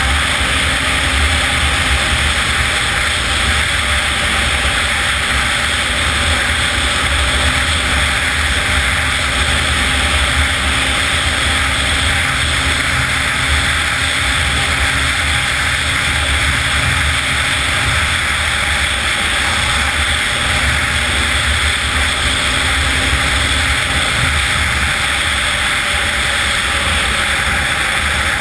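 2013 Polaris Assault snowmobile running at a steady high speed over snow, its engine and track noise mixed with a constant rush of wind over the camera. The sound stays even throughout, with no change in throttle.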